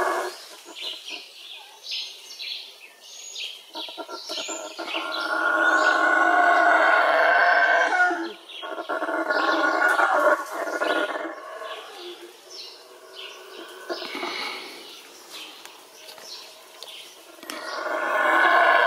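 Yucatán black howler monkey howling: a long bout starting about four and a half seconds in, broken briefly near the middle, and another starting near the end. Birds chirp in the gaps between the howls.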